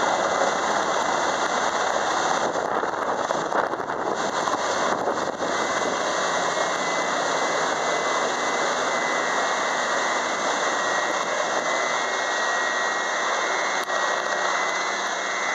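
Sikorsky S-92 helicopter's turbines and rotor, a loud steady noise as it hovers and passes close overhead, with a thin high turbine whine.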